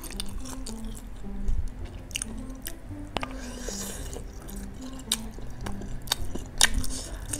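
A person chewing bakso meatballs close to the microphone, with scattered sharp wet clicks, over quiet background music with a simple stepping melody.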